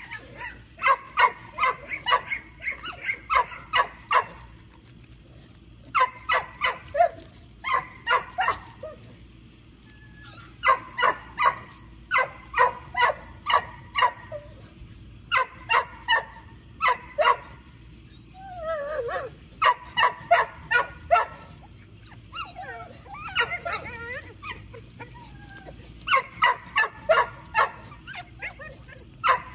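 A dog barking in quick runs of several sharp barks, about four to five a second, with short pauses between the runs. A brief falling whine comes about two-thirds of the way through.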